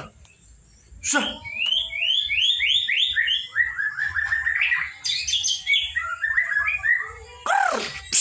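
Young white-rumped shama, at the speckled juvenile stage, singing: a run of quick rising whistled notes, then a string of falling and chattering notes, with a loud harsh call near the end.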